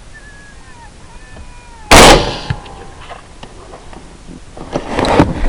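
A single rifle shot about two seconds in, sharp and very loud, with a brief echo trailing off. Before it come faint high squealing calls that fall in pitch, and near the end a burst of rustling and clicking handling noise.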